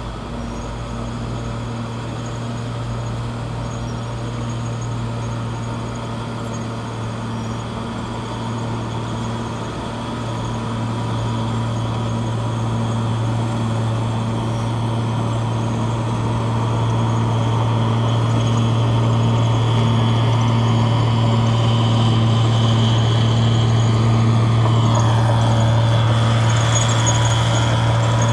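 Bulldozer's diesel engine running steadily with a low drone, getting louder in the second half.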